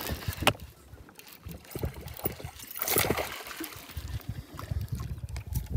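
Fishing reel being cranked to bring in a hooked bass, with water splashing and sloshing around the kayak and a sharp click about half a second in.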